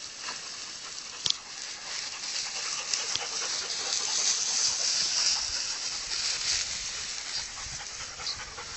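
Pointer dogs panting, over a steady hiss of rustling tall dry grass.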